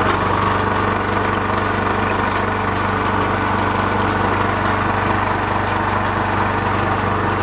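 Small animal-feed pellet mill running steadily under load, its motor humming and its die pressing feed out as pellets. The sound is an even, continuous drone with a grinding rasp over it.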